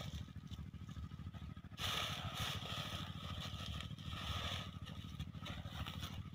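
Granular urea fertilizer pouring between plastic and woven sacks: a hissing rush of granules with sack rustling for about three seconds, starting about two seconds in. A tractor engine idles underneath.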